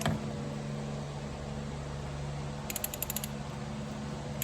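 A socket ratchet wrench clicking in a quick run of about ten clicks, working the new oil filter tight on a Jeep Wrangler JK, with a single knock at the very start.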